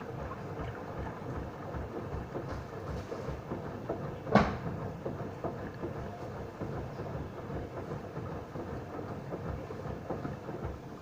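Hoover washing machine running, its drum turning and churning water with a steady rumble and irregular low knocks, and one sharp loud clunk about four seconds in.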